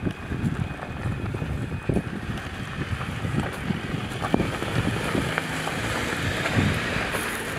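Jeep Wrangler Rubicon driving over a rocky dirt trail: a low engine rumble with stones and gravel crunching and popping under the tyres, the tyre hiss building as it comes close and passes. Wind on the microphone.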